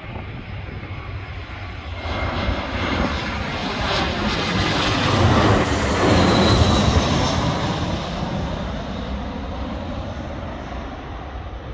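British Airways Airbus A320 jet airliner passing on landing, its engine noise swelling to its loudest about halfway through and then fading away.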